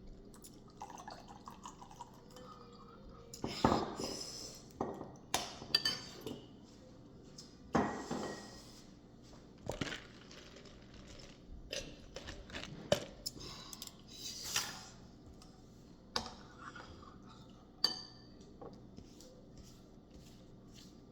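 Dishes and kitchen utensils clinking and knocking: irregular sharp taps and clinks with quiet gaps between them.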